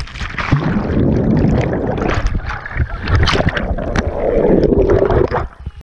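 Bubbles and churning water heard through a submerged camera: a dense, muffled rushing with many small crackles and pops, falling away just before the end.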